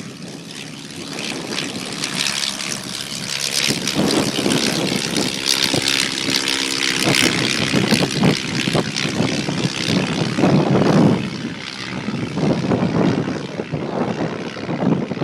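De Havilland Tiger Moth biplane's engine and propeller running as it climbs out after take-off. The sound grows louder over the first few seconds as the plane comes nearer, then stays loud, with wind buffeting the microphone.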